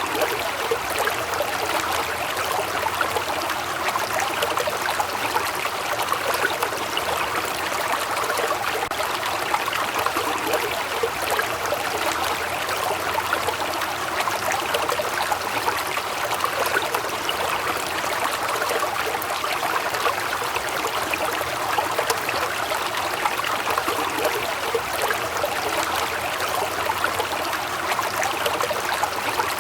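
Waterfall: steady rushing and splashing of falling water, unchanging throughout.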